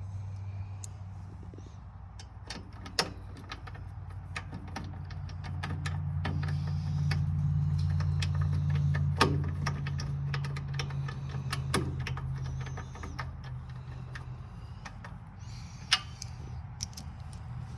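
A steady low mechanical hum that swells louder in the middle and eases off again, with many scattered clicks and a few sharper knocks from hand work on metal parts.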